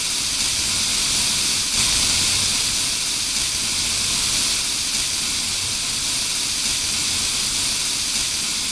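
Aerosol can of foaming interior cleaner spraying in one long, unbroken hiss onto a car dashboard.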